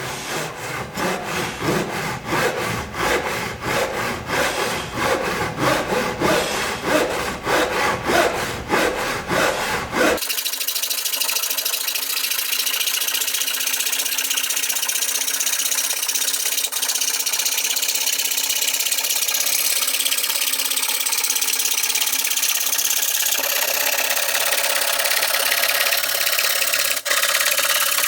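A Japanese handsaw cutting a wooden board in quick, even strokes, several a second. About a third of the way in it cuts off abruptly, and a steady hiss with a faint hum takes over.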